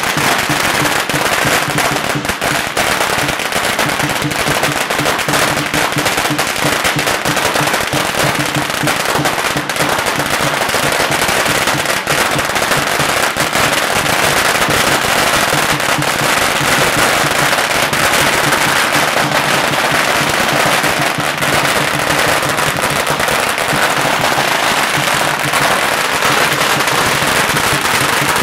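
A long string of firecrackers going off in a continuous, rapid crackle of pops, without a break.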